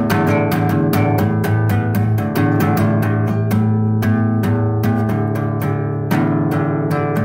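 Instrumental background music: a steady run of plucked notes, about three or four a second, over a sustained low bass note.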